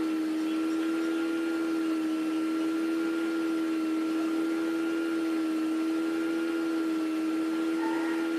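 Steady machine hum at one constant pitch with overtones, unchanging throughout.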